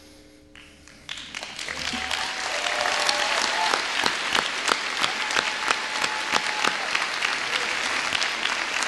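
Audience applauding: clapping starts about a second in, builds, and then holds steady.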